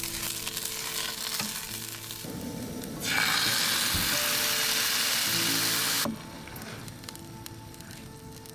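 Onions and mushrooms sizzling in oil in a frying pan on a gas camp stove. About three seconds in, canned chili is poured into the hot pan and the sizzle turns much louder for about three seconds, then drops back to a quieter sizzle.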